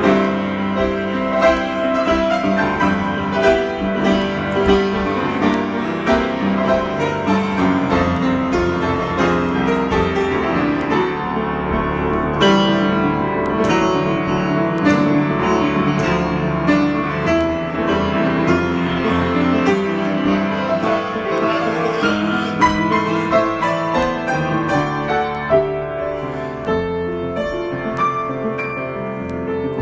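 Solo piano improvisation: a continuous flow of notes and chords, easing off slightly near the end.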